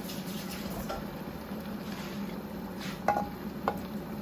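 A utensil stirring in a cooking pot, with two short ringing metal clinks against the pot a little after three seconds in, over a steady low hum.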